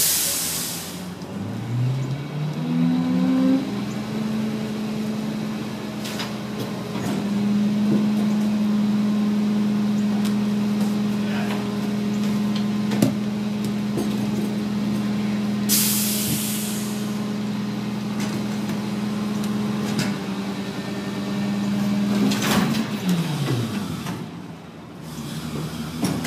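Rear-loading garbage truck's diesel engine revving up about two seconds in and holding at high speed while the packer hydraulics run a compaction cycle, then dropping back to idle near the end. Two short air hisses, one at the start and one about two-thirds through, and occasional clanks of cans against the hopper.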